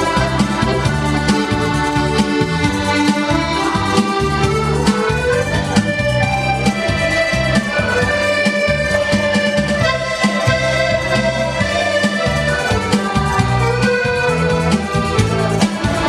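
Piano accordion playing a tune, with held melody notes over a rhythmic, pulsing bass.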